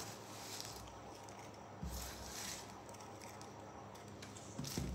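Faint rustling of small white paper scraps being picked up off a wooden table and dropped into a cardboard tissue-roll tube, with a soft bump about two seconds in.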